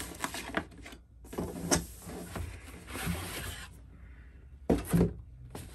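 Cardboard rubbing and scraping as a black inner box is slid out of its tight cardboard sleeve, with a short pause about a second in. A couple of sharp knocks near the end as the box is set down on a table.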